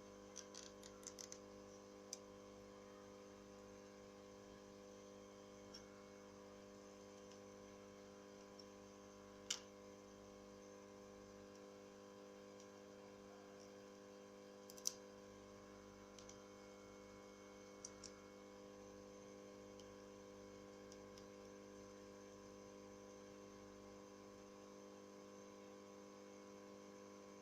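Quiet steady electrical hum with scattered small clicks and taps from small tools and phone parts being handled during a Nokia Lumia 535 touchscreen repair: a quick cluster right at the start, then two sharper ticks about ten and fifteen seconds in.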